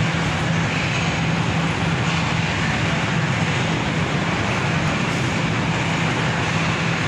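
Steady low diesel drone of the Khyber Mail express train at the platform, a constant hum with a hiss over it that does not change.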